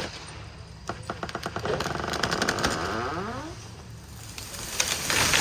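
Chainsaw engine speeding up from slow firing clicks to a run, then dropping back down in pitch. Near the end a loud rushing noise builds.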